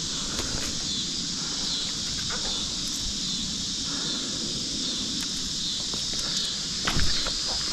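Steady outdoor background hiss, with a few sharp knocks near the end.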